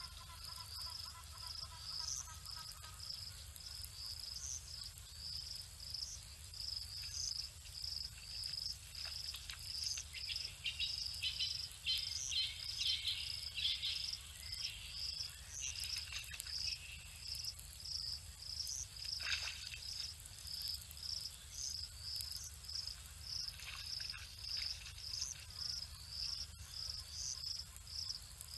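Insects chirping steadily, a high shrill trill that pulses about once a second. A cluster of short sharp chirps comes in about ten to fourteen seconds in, with one more near twenty seconds.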